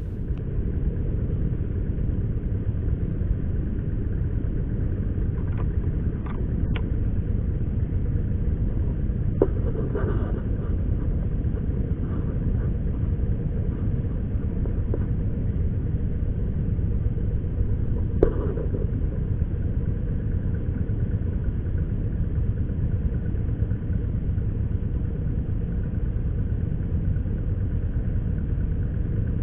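Steady low rumbling noise, with a few faint clicks about six, nine and eighteen seconds in.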